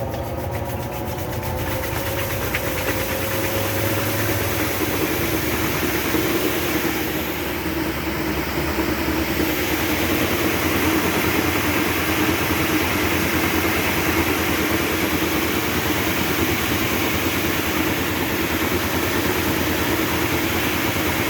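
Whirlpool washer running with its new tub hub fitted: a steady mechanical running noise from the motor and turning tub, with a rising whine that fades out in the first few seconds.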